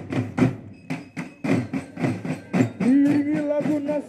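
Military marching drum band playing: snare, tenor and bass drums beating a quick rhythm. About three seconds in, a long held pitched note joins the drumming.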